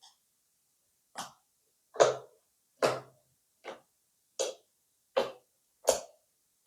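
Crunchy slime being kneaded and squished: seven short crunchy squishes, about one every 0.8 seconds.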